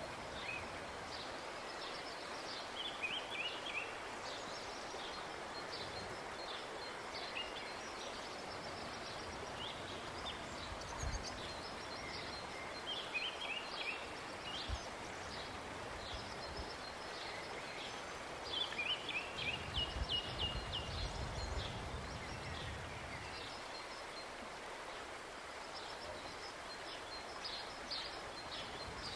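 Rural outdoor ambience: a steady background hiss with small songbirds chirping over and over in short quick phrases.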